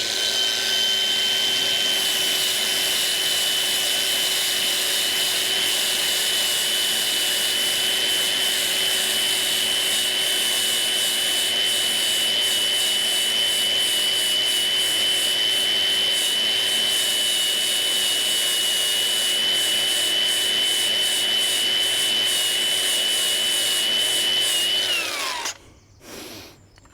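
Electric angle grinder running steadily with a high whine at one pitch, stripping paint off the steel where a hinge is to be welded. About 25 seconds in it is switched off and spins down, its pitch falling.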